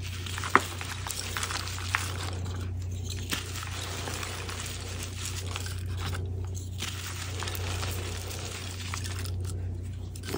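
Hands crushing soft, gritty blocks of reformed gym chalk, a continuous crumbling crunch of chalk breaking into powder. A sharp crack about half a second in, with smaller ones near two and three seconds, over a steady low hum.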